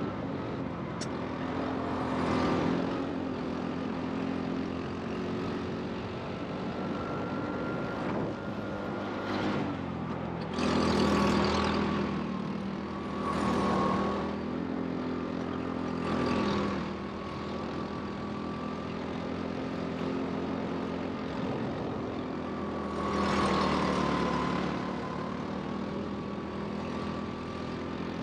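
Go-kart running on a track: a steady motor drone with a thin high whine that slides up and down with speed. It swells louder four times, most strongly about a third of the way in.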